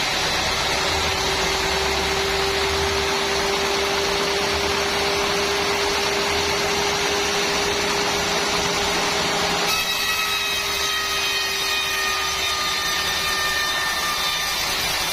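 Sawmill saw running through timber: a steady whine over continuous machinery noise, changing about ten seconds in to a higher, slowly falling whine.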